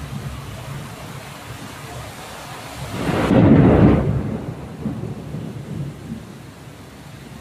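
Steady rain with a loud rumble of thunder that swells up about three seconds in and dies away over a second or so.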